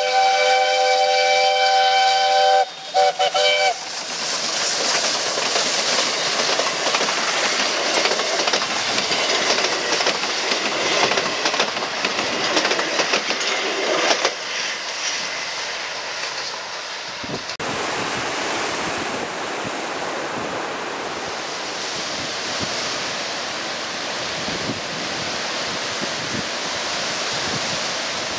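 Outeniqua Choo Tjoe steam locomotive's whistle sounding several notes at once in one long blast, then two short toots. The train's coaches then roll past, wheels clattering on the rails. About seventeen seconds in this gives way to steady surf and wind noise.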